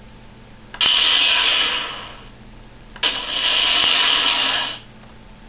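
Hasbro Iron Man 2 electronic toy helmet playing two hiss-like sound effects from its small built-in speaker. The first starts suddenly about a second in and fades away; the second starts about three seconds in, holds steady and cuts off abruptly.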